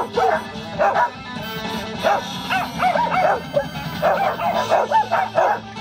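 Several dogs barking and yipping excitedly in quick succession, several barks a second, over music playing.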